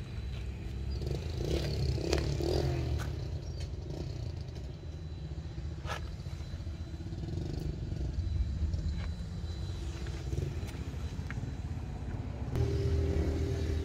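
A motor vehicle engine running with a steady low rumble, with scattered clicks and knocks. A steadier, higher engine note comes in near the end.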